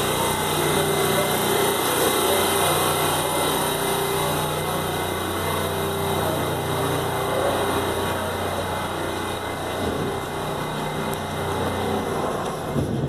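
R68A subway train moving along a station platform: steady wheel and motor noise with a low hum, and a short knock near the end.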